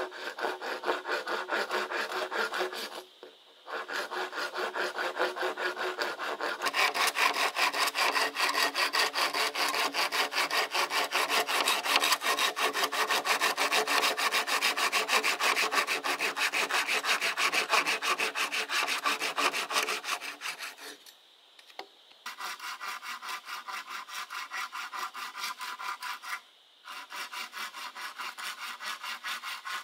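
Hand saw cutting with quick, even back-and-forth strokes, stopping briefly three times. The strokes grow louder and sharper from about seven seconds in, then quieter after a pause near twenty-one seconds.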